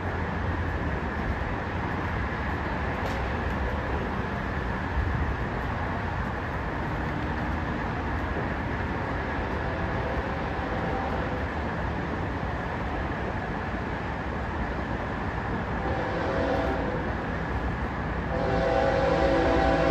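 An approaching BNSF locomotive rumbles steadily in the distance, then sounds its horn, several notes together, briefly about sixteen seconds in and again, louder, near the end.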